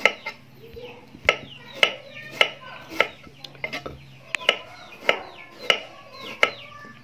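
Knife chopping through fresh bamboo shoots against a wooden board, one sharp chop a little over every half second.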